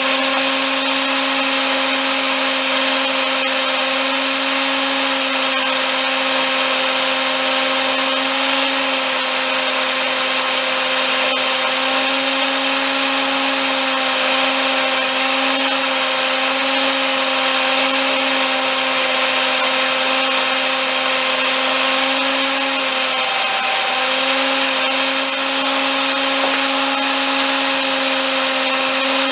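Handheld electric power tool running continuously under load: a steady motor whine over a dense hiss. The pitch dips briefly about three-quarters of the way through, then recovers.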